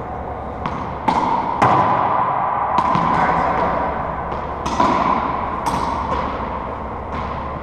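Irregular sharp knocks and thuds of racquetballs hitting walls and floor, each followed by a ringing echo from the enclosed court.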